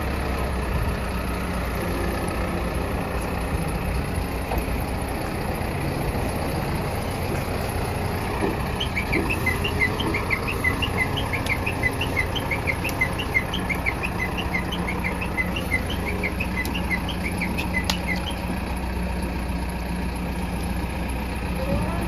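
Bull backhoe loader's diesel engine running steadily, a low even hum. From about nine to eighteen seconds in, a bird chirps in a quick run of short high notes.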